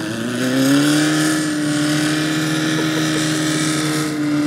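A vehicle's engine revving up over about the first second, then held at high, steady revs as it drives into a deep mud hole, over a steady hiss.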